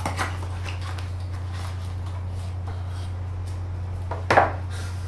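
Unboxing handling noise: light rustles and taps as a drone's fabric carry case and its packaging are handled, with one louder, brief rustle about four seconds in as folded paper instruction leaflets are taken out. A steady low hum runs underneath.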